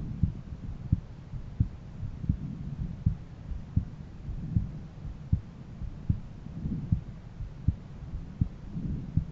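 A man's heartbeat heard through a stethoscope on the chest: short low thuds repeating steadily at about 80 beats a minute over a low rumble, with a broader low swell every two seconds or so.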